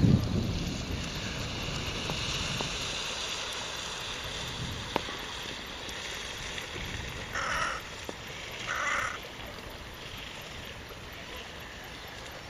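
Two harsh crow caws, about a second and a half apart, over a faint outdoor hiss. A brief low rumble of wind on the microphone comes right at the start.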